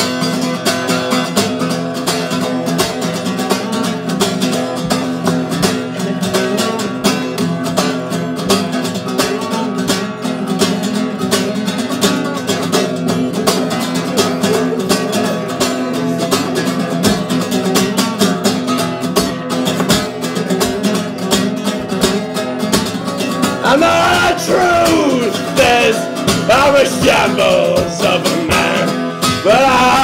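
Steel-string acoustic guitar strummed briskly in a solo instrumental passage. Near the end a man's singing voice comes in over the strumming.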